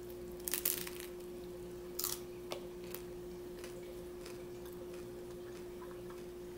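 Crunchy hard taco shell being bitten and chewed close to the microphone: a few sharp crunches in the first three seconds, then fainter chewing clicks. A faint steady hum runs underneath.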